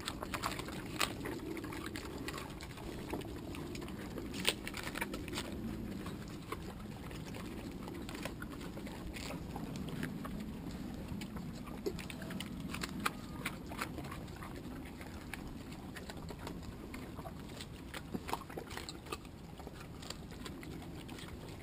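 Mangalica pigs eating windfall apples off the ground: irregular wet crunching and smacking as they chew.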